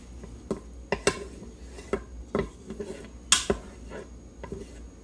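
Wooden spatula knocking and scraping against an Instant Pot's inner pot while stirring melting butter: irregular clicks, roughly one or two a second, the sharpest a little past halfway.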